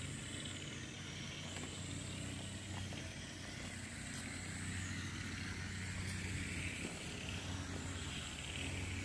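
Cicadas calling in a steady high-pitched drone that wavers up and down in pitch, over a steady low hum.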